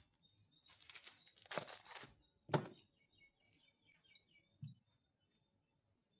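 Faint household handling noises: rustling, then a sharp knock about two and a half seconds in and a soft low thump near the five-second mark. A few faint short high chirps come in between.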